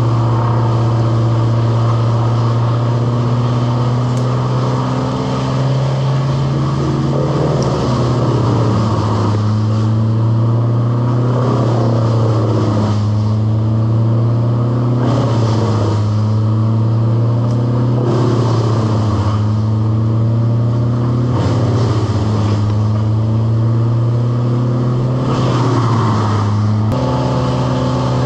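An engine running steadily at a fairly high speed. Every few seconds its pitch sags briefly, with a burst of rougher noise, as if it is taking load.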